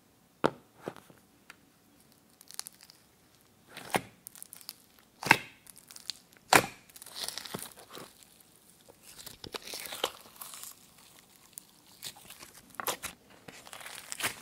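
Glossy slime stretched and squeezed by hand: a string of sharp, sticky pops and snaps, a couple of them loud, with stretches of fine crackling between them.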